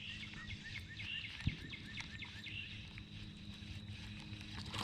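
Faint outdoor ambience of small birds chirping in quick short repeated calls, over a steady low hum, with a single light click about a second and a half in.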